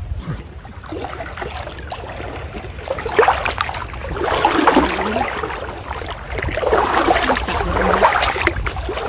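Floodwater sloshing and splashing as people wade through it waist-deep, louder in two stretches, from about three seconds in and again from about six and a half seconds.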